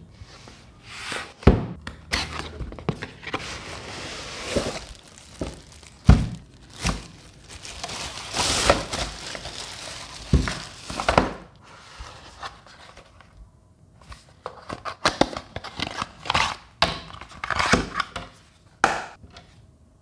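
Unboxing handling noise: a cardboard box opened and a small plastic air cooler unwrapped from crinkling white paper wrapping. There are bursts of rustling and crinkling with a few sharp knocks as the box and unit are handled and set down.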